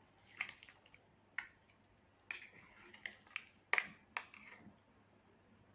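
Metal utensil clicking and scraping against a dish while tuna is added to a salad: about seven short, sharp clicks over four seconds, with a softer scrape in between.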